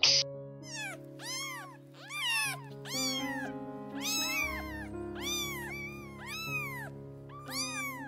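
Domestic cat meowing over and over, short rising-and-falling meows about twice a second, over background music with sustained notes. A brief hiss right at the start.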